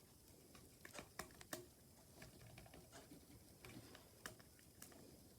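Faint, irregular key taps on a Logitech Keys-To-Go Bluetooth keyboard being typed on, a quick run of taps in the first second and a half, then softer scattered ones.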